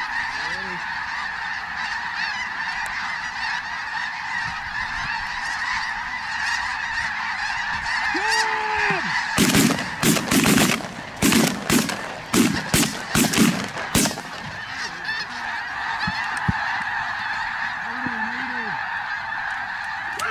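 A large flock of geese honking continuously as it passes over. Roughly halfway through, a burst of loud, sharp honks and clucks lasts about four seconds.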